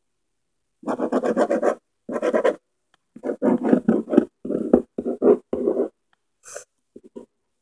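A run of rough growls in short bursts, half a second to a second each, over the first six seconds, then only a couple of faint sounds near the end.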